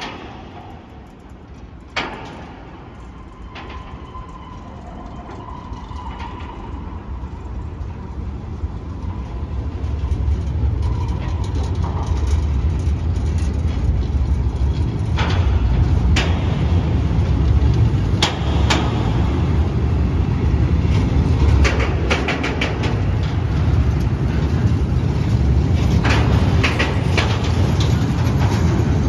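A freight train of tank wagons rolling past, its deep rumble growing louder over the first ten seconds and then holding. Sharp wheel clacks come at irregular intervals, with a faint thin squeal in the first few seconds.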